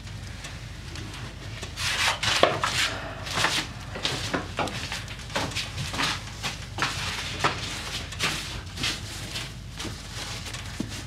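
Cloth rubbing boot balm into a leather boot: a run of quick, uneven scrubbing strokes, busier from about two seconds in.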